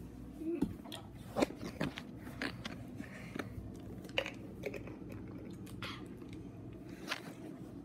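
A child drinking from a plastic bottle: irregular gulps and mouth sounds with clicks and knocks from the bottle, over a low steady hum.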